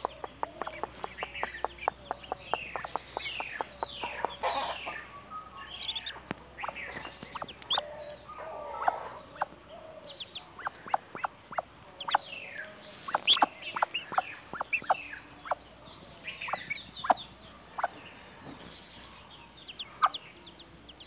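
Ducklings peeping: many short, falling chirps, at times several at once.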